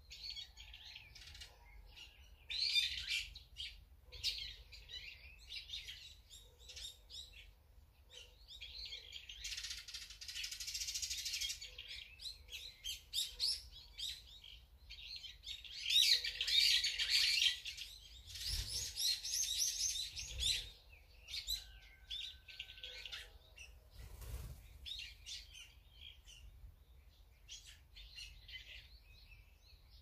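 Small wild songbirds chirping and calling, in repeated bursts of high, quick chirps that grow dense and loudest a little past the middle, with quieter scattered calls near the end.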